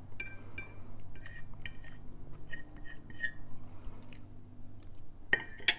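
Metal cutlery clinking against a plate during a meal: a string of short, light clinks, some with a brief ringing tone. The loudest clinks come near the end.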